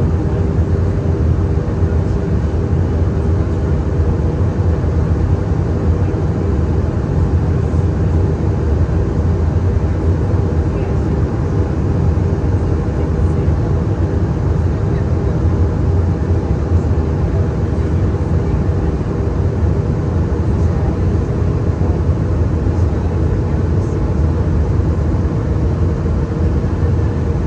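Cabin noise of a Jetstar Airbus A320-200 in flight: a steady, loud rumble of engine and airflow, with a hum that edges slightly up in pitch near the end.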